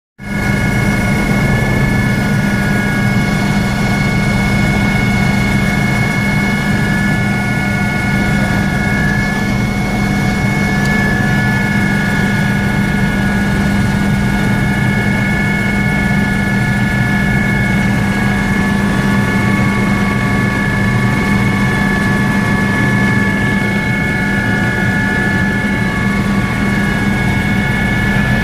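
Helicopter heard from inside the cabin in flight: a steady low drone from the engine and rotor, with a steady high whine over it.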